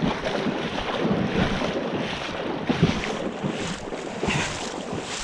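Wind buffeting the microphone, with water sloshing underneath in an uneven rush.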